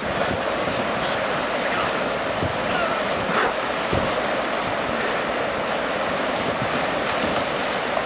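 Shallow river rushing over rocks and small rapids: a steady hiss of running water.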